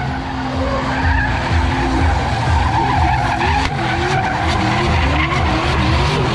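Drift cars' engines revving hard, the pitch climbing and dropping again and again as the throttle is worked, over a constant screech of tyres sliding sideways.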